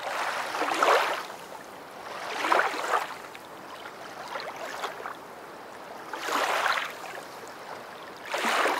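Rushing water like waves washing in, rising and falling in four surges about two seconds apart.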